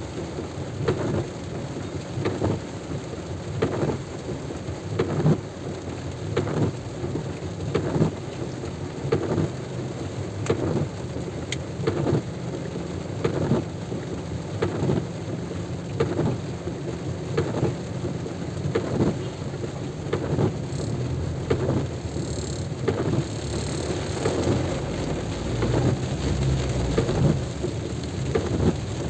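Heavy rain falling, with many separate drops striking hard and close to the microphone at an irregular pace.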